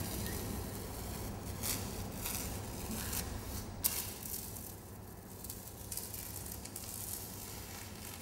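Short rustling scrapes of a hand rubbing and pressing masking tape against a wall, with a sharp click about four seconds in.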